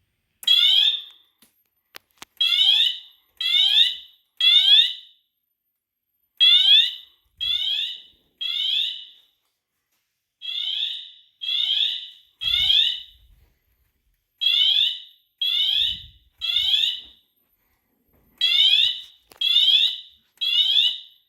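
Wheelock MT fire alarm horn set to its siren tone, coded by the fire alarm panel into a temporal code-3 pattern: groups of three short rising sweeps about a second apart, with a pause of about two seconds between groups. It is the building alarm, set off by an ESL 523C smoke detector that has been put into alarm with smoke.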